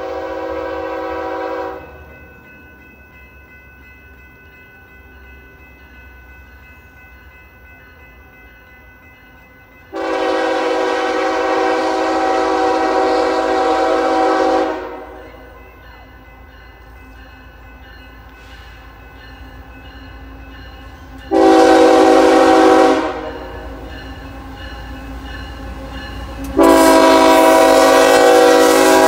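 Nathan K5HL five-chime air horn on a Canadian Pacific GE ES44AC locomotive sounding the grade-crossing pattern: the tail of a long blast, a second long blast of about five seconds, a short blast, then a final long blast as the locomotive draws alongside. Under the horn is the low rumble of the approaching freight train, growing louder.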